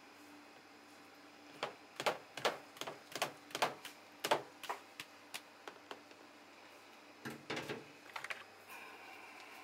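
Plastic colander tapping and knocking against the rim of a plastic food container as salmon roe is shaken out of it: a run of sharp clacks, two or three a second, starting about a second and a half in and breaking off around five seconds, then a few more near the end.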